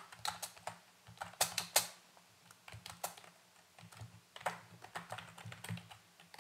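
Typing on a computer keyboard: irregular keystroke clicks, with a few louder strokes about a second and a half in.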